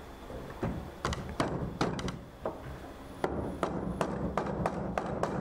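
Carved wooden chair-frame parts being knocked together onto wooden dowels: a string of about a dozen short, irregular wooden knocks and taps.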